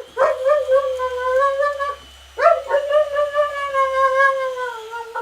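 A dog howling: two long, drawn-out howls, the second slowly falling in pitch.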